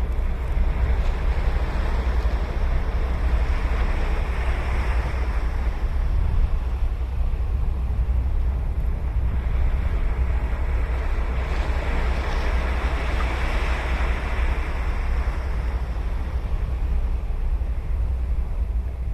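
Ocean surf breaking and washing up the beach, swelling twice as waves come in, about a quarter of the way in and again past the middle. A steady low wind rumble on the microphone lies under it.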